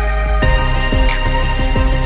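Background music with a steady electronic beat and held synth chords.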